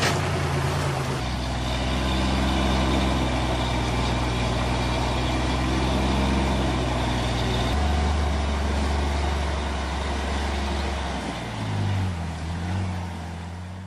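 Heavy vehicle engine running steadily, its pitch jumping abruptly twice and wavering up and down near the end.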